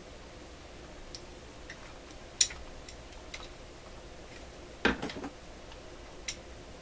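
Scattered sharp clicks and taps of a screwdriver and small metal parts being worked on a vintage tube radio's metal chassis, the loudest about two and a half seconds in and a quick cluster of knocks around five seconds in.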